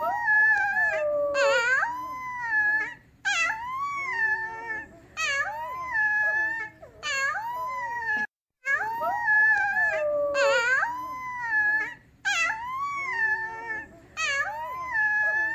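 A young grey pup howling over and over: a string of high, wavering howls that slide up and down in pitch, each a second or two long with short breaks between.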